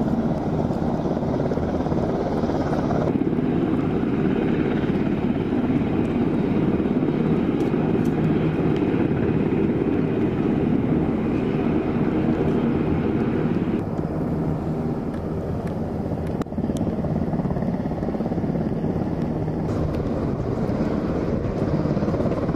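Jet aircraft engines running on the flight line: a steady, low rumble of engine noise whose character changes abruptly about 3 and 14 seconds in.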